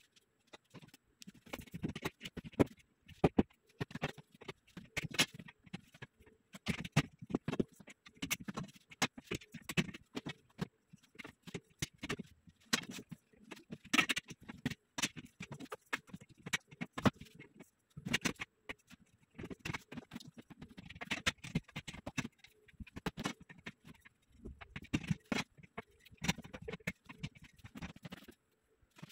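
Rapid, irregular clicks, taps and knocks of a metal bed frame being handled and assembled, mixed with slipper footsteps on a wooden floor.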